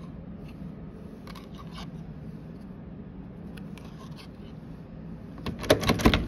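Plastic hotel key card tapping and scraping against a door's card-reader lock with faint ticks over a low steady hum, then louder metallic clunks and clatter from about five and a half seconds in as the lever handle is pressed and the latch works.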